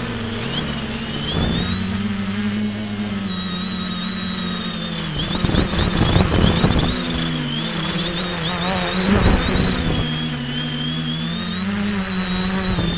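Quadcopter's electric motors and propellers whining in flight, the pitch wavering up and down as the throttle changes. There are louder, rougher stretches about five to seven and nine to ten seconds in.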